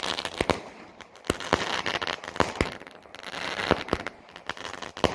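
A TGI Pyro 7-shot consumer firework cake firing. Sharp reports of shots and breaks come roughly once a second, with a fizzing crackle from the crackling stars in between.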